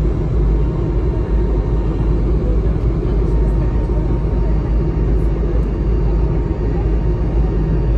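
Steady cabin noise of an Airbus A220-300 in its climb after takeoff, heard from a window seat beside its Pratt & Whitney PW1500G geared turbofan: a dense, even, low rumble with a faint steady whine above it.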